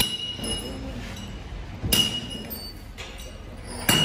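Sharp metal-on-metal clinks, three in all and roughly two seconds apart. Each one ends in a brief ring at the same high pitch, like metal being struck.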